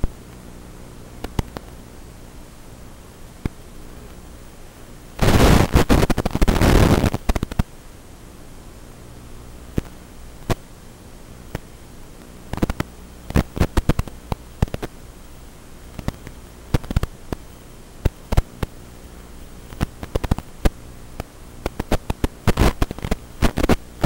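Steady hiss and faint hum of static on an analog FPV video link's audio channel, broken by scattered crackling clicks and pops. A loud burst of crackling static lasts about two seconds a quarter of the way in, and further clusters of pops come later.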